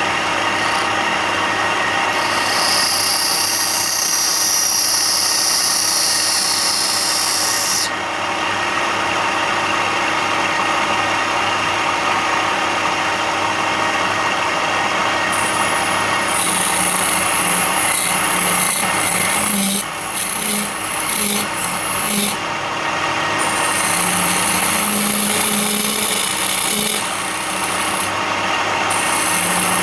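A power tool running steadily while it grinds or sands wood. A high hiss from the cutting starts about two and a half seconds in, stops near eight seconds, and returns from about sixteen seconds on with a few brief breaks.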